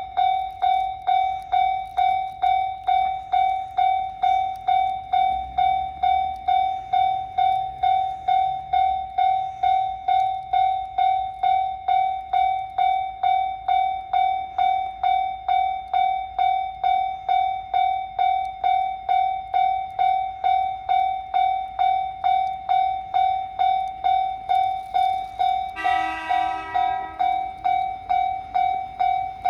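Japanese level-crossing warning bell ringing steadily, one electronic tone struck about twice a second. About 26 seconds in, the KiHa 54 diesel railcar sounds its horn, a chord of several pitches, for about two seconds.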